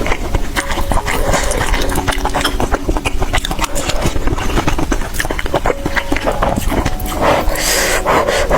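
Close-miked chewing and slurping of a saucy meat dish, with many small wet clicks and smacks, over soft background music.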